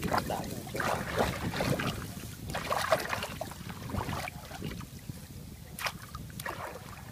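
Water splashing and sloshing as a child wades through shallow muddy water and moves a mesh fish trap in it: irregular splashes, loudest about three seconds in, tapering off near the end.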